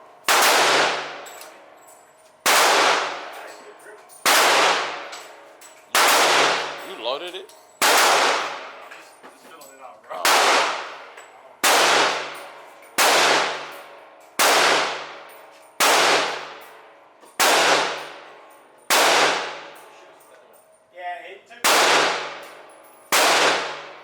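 Gunshots at a shooting range, one about every second and a half, around fifteen in all, each loud crack followed by a long echoing ring.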